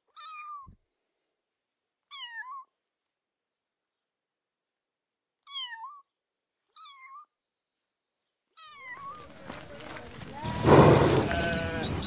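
A domestic cat meowing: five short meows with silence between them. Near the end, louder animal calls over a noisy background take over.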